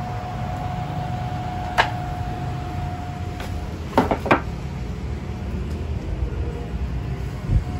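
Steady low hum with a faint high whine from the CNC machine's controller electronics and cooling fans; the whine drops out about halfway and returns near the end. A few sharp clicks come about two and four seconds in, and a low thump near the end.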